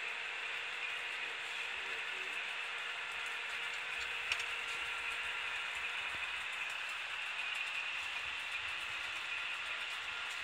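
HO scale Atlas Dash 8-40CW model locomotive and its train running along the shelf track: a steady whir, with one sharp click about four seconds in.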